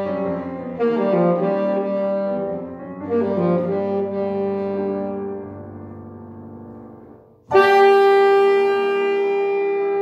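Saxophone playing a melody over upright piano accompaniment, in short phrases that fade away. About seven and a half seconds in, the saxophone comes in suddenly on a loud, long held note.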